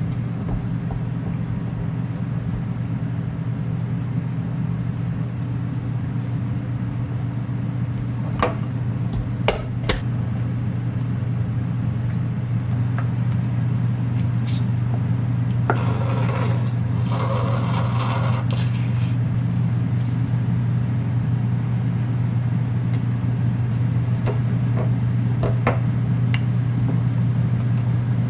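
A wooden spoon clicking and scraping against a small glass bowl while a sauce is mixed, with a squeeze bottle squirting for a few seconds about halfway through. Under it all runs a steady low hum, the loudest sound throughout.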